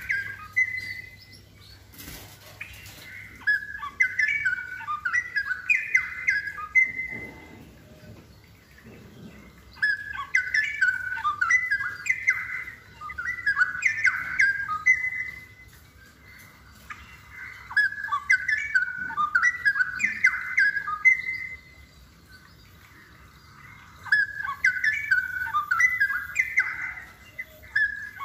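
Straw-headed bulbul (cucak rowo) singing: phrases of rapid notes sweeping up and down, each a few seconds long, repeated about four times with short pauses between.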